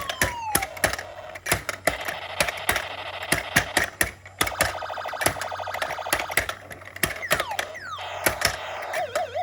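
Electronic whack-a-mole toy game being played: a toy hammer knocking on the pop-up moles again and again, amid the toy's electronic beeps, buzzing and falling-pitch sound effects. A warbling electronic tone sounds near the end.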